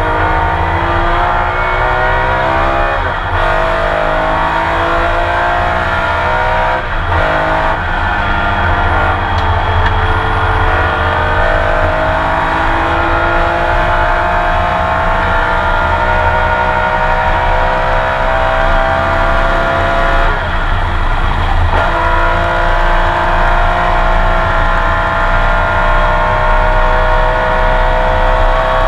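Porsche 911 RSR flat-six engine heard onboard under hard acceleration, its note climbing through the gears with quick upshifts about three and seven seconds in. A long, slow rise in pitch follows, broken by a brief rough patch around twenty seconds in before the engine pulls again.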